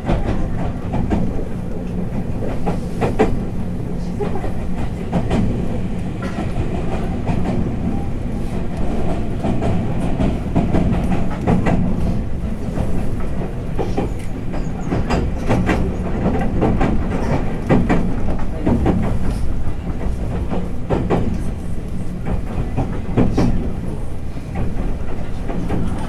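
Inside a JR West 221 series electric train's motor car running along the line: the steady rumble of wheels on rail, a low motor hum, and irregular clicks and knocks over rail joints.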